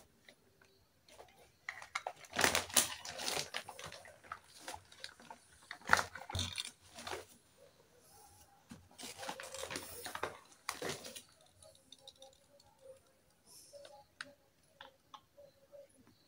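Small plastic toy kitchen pieces handled and set down on a hard tabletop, clicking and clattering in several bursts, the sharpest click about six seconds in. Only faint ticks follow near the end.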